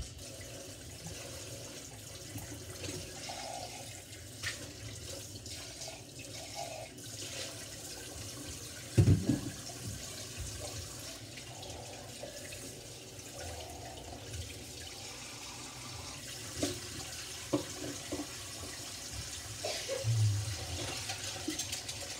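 Kitchen faucet running steadily into a stainless steel sink as dishes are rinsed under the stream, with a few knocks, the loudest a low thump about nine seconds in.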